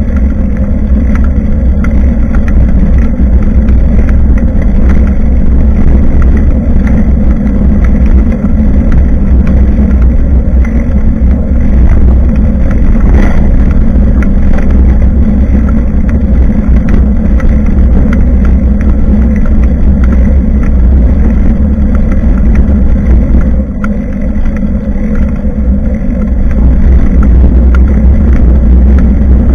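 Loud, steady low rumble of wind and ride noise on a bicycle-mounted action camera's own microphone during a ride, with scattered small rattles.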